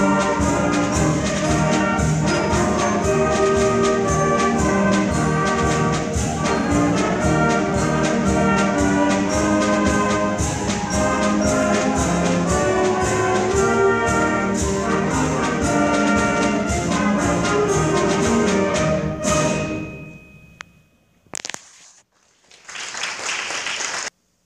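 Symphonic concert band playing full ensemble, with trumpets and trombones prominent over a steady beat. The music stops about five seconds before the end, leaving near quiet broken by a click and a short burst of noise.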